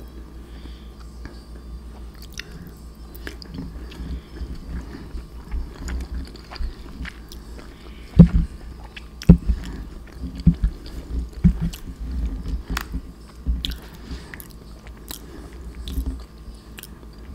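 Close-miked chewing of soft mac and cheese: wet mouth sounds with a series of short low thumps and clicks, the two loudest about eight and nine seconds in.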